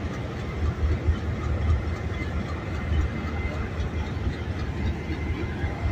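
Diesel-electric locomotive 6017 running close by, a steady low rumble.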